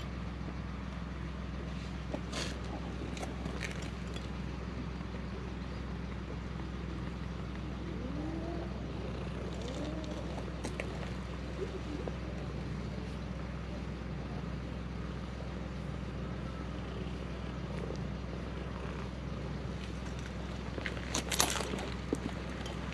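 Steady low outdoor rumble with faint rustling, and a short burst of scuffs and clicks near the end.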